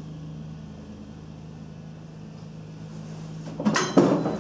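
A classroom chair pulled out from a desk: a short scrape and clatter with a couple of knocks about three and a half seconds in, over a steady low hum.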